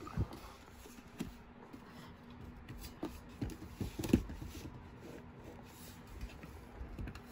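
Soft rustling and scattered light knocks from things being handled in a small room, the sharpest knock about four seconds in, over a steady low hum.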